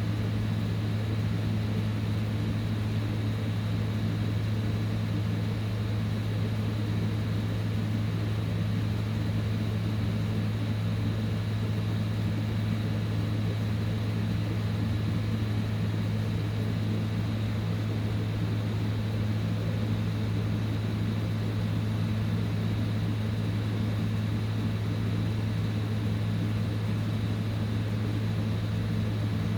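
Heat gun blowing steadily, an unbroken rush of air over a low hum.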